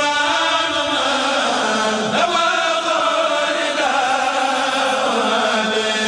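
A kourel of Mouride chanters intoning a khassida, a Sufi poem in Arabic, together in long held notes that slide slowly from one pitch to the next.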